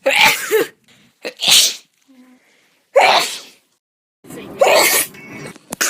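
A woman sneezing, about four separate sneezes one after another, each a short sharp burst with brief quiet between them.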